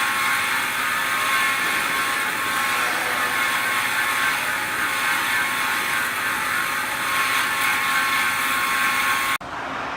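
Metal-cutting band saw machine running: a steady dense mechanical noise with a constant whine. The noise cuts off abruptly near the end and gives way to a quieter machine hum.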